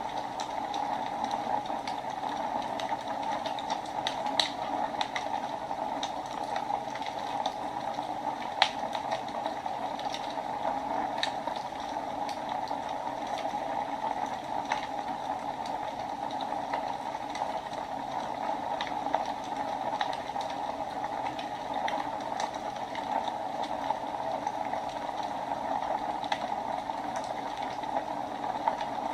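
Wood fire burning in a fireplace: a steady hiss with scattered sharp crackles and pops, two louder pops about four and nine seconds in.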